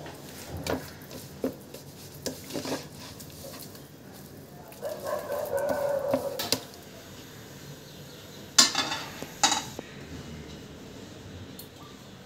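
Mackerel being pressed and turned in flour on a ceramic plate: scattered light knocks and clinks against the plate, a stretch of rubbing about halfway through, and two louder knocks a second apart a little past two-thirds in.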